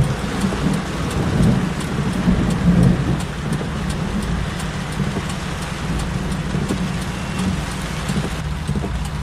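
Thunder rumbling from a cloud-to-ground lightning strike about 2 kilometres away, swelling and rolling for several seconds. Rain falls throughout, heard as many faint ticks.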